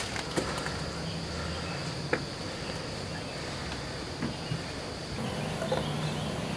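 Steady high chirring of night insects, with a couple of short knocks, one about two seconds in.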